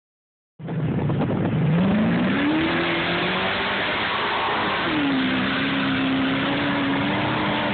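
Off-road race vehicle engine running hard. Its pitch climbs steeply about a second in, then drops a step about five seconds in and holds steady.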